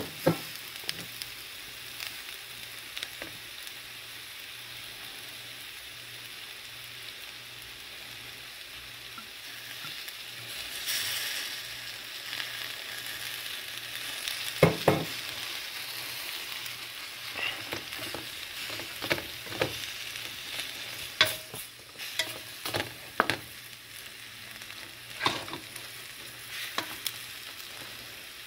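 Kentucky Wonder green beans sizzling steadily in a hot stainless steel pan, the sizzle swelling about eleven seconds in as Worcestershire sauce reaches the pan. From about halfway, a wooden spoon stirs the beans, knocking and scraping against the pan.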